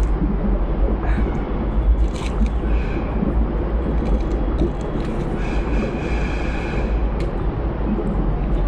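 Steady low rumble of wind buffeting the microphone outdoors, with faint scraping and crumbling of potting soil being handled.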